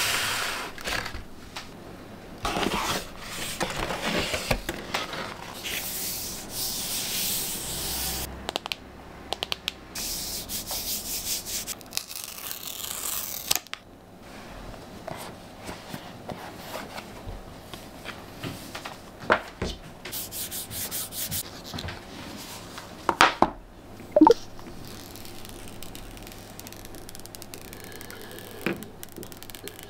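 Packaging of an iPhone 15 Pro being handled: paper and cardboard rubbing and rustling in several stretches as the box comes out of its paper Apple bag and is opened. There are a few sharp taps and clicks partway through, and the paper screen cover is peeled off the phone near the end.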